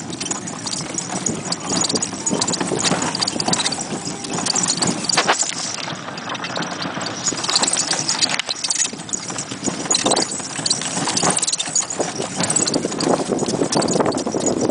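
A pony's hooves clip-clopping on a sandy dirt road as it pulls a horse-drawn cart, with the cart rattling along behind it.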